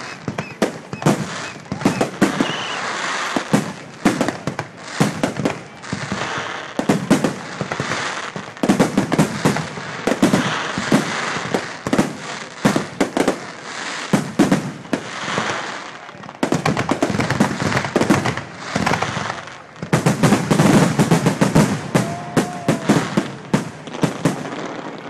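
Aerial fireworks display: a rapid, overlapping run of shell bursts, sharp bangs over continuous crackling. Near the end it thickens into a dense barrage of bangs.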